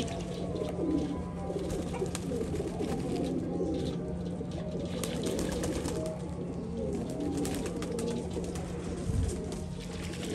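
A flock of domestic pigeons cooing, many low overlapping coos at once, with scattered short clicks.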